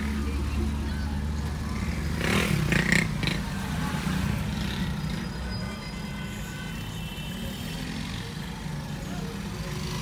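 Street traffic heard from inside a car crawling in a jam: a low steady hum, with a louder, brief rush of noise about two to three seconds in.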